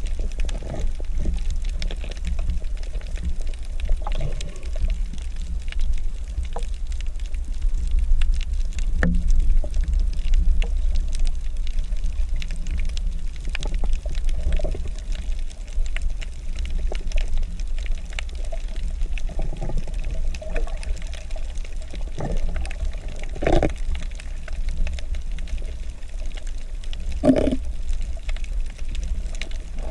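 Underwater sound heard through a camera housing: a steady low rumble of moving water with scattered faint clicks, and a few louder gurgling bursts, one around the middle and two near the end.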